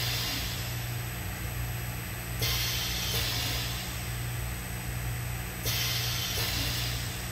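Milling post lift's mill and rotary valve running during an automatic discharge, a steady motor hum with a high hiss that cuts in abruptly for stretches of a few seconds, about two and a half seconds in and again near six. The machine is metering the discharge slowly at the tail end of a set batch weight.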